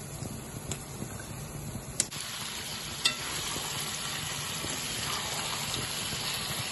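Onions frying in hot oil in a kadai, sizzling steadily, as raw chicken pieces are added and stirred in with a spoon. There are a few sharp clicks of the spoon against the pan, and the sizzle gets louder from about two seconds in.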